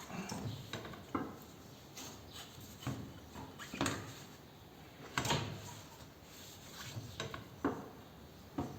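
Scattered light knocks, clicks and rubbing of parts and tools being handled during motorcycle rear-wheel removal, with a few sharper knocks spread through.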